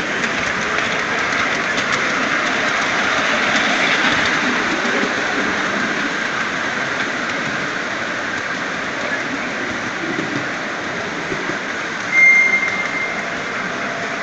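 Wheels of a 5-inch gauge ride-on miniature train rolling and clattering along the track and over points, a steady running noise. A short high tone sounds about twelve seconds in.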